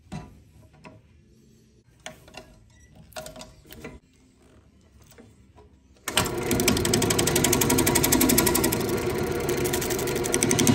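A few light knocks as an ambrosia maple bowl blank is fitted on the lathe. About six seconds in, the lathe is spinning the rough, out-of-round blank and a gouge takes an interrupted roughing cut, with a loud, rapid rhythmic chatter.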